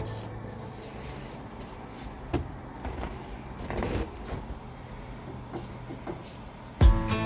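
A few light knocks and clicks of a beef roast being set on the metal grate of a Masterbuilt 560 charcoal smoker, over a low background hum. Near the end a plucked guitar tune starts.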